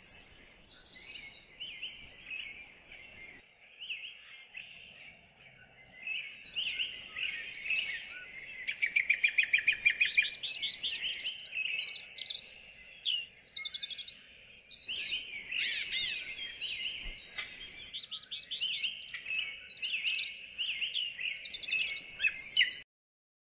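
Songbirds chirping and singing, several overlapping calls with quick rapid trills, loudest around the middle; it cuts off abruptly shortly before the end.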